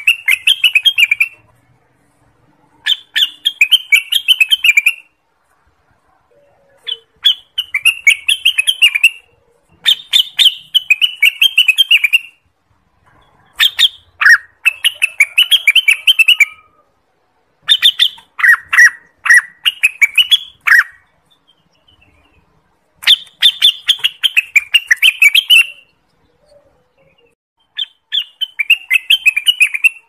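Orange-spotted bulbul (cucak wilis) singing: bursts of rapid, chattering notes, each about two to three seconds long, repeated about eight times with short silent gaps between.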